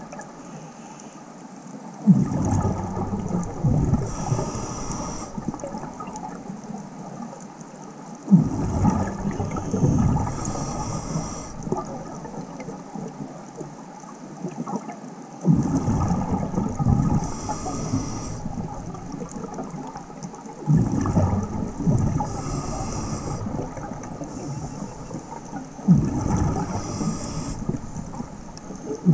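Scuba diver breathing through a regulator underwater: about five breaths, each a loud rush of exhaust bubbles lasting a few seconds, with a hiss of the regulator on the inhale between them.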